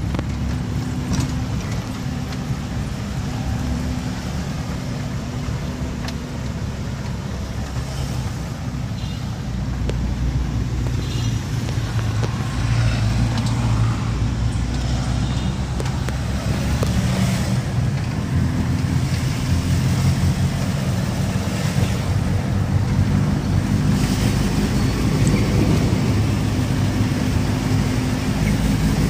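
Engine and road noise of a moving vehicle heard from inside its cab: a steady low drone whose pitch shifts as it speeds up and slows in town traffic. It grows louder about twelve seconds in.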